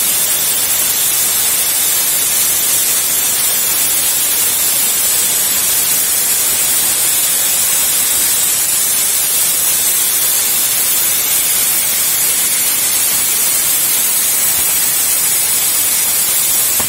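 CNC plasma cutting torch cutting sheet metal: the plasma arc and its gas jet give a steady, high hiss that holds level throughout.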